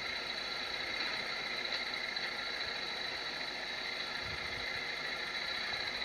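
A 200cc motorcycle engine running steadily at idle.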